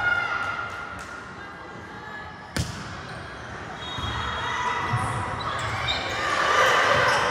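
A volleyball struck sharply once, about two and a half seconds in, in a large echoing gym, with players' and spectators' voices swelling toward the end.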